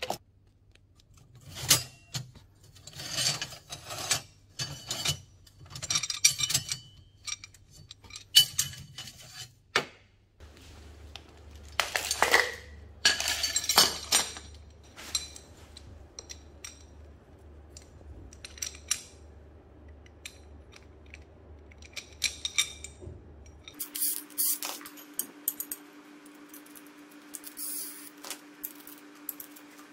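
Metal motorbike parts (brake disc, disc adapter, bolts) clinking and clattering as they are handled and set down on a tile floor. For the last several seconds a Makita cordless impact driver runs steadily, fastening the brake disc to the hub-motor wheel.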